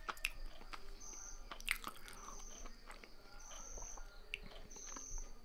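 Faint small clicks and smacks of a mouth close to the microphone, as in chewing, with a faint high-pitched chirp repeating about every second and a quarter.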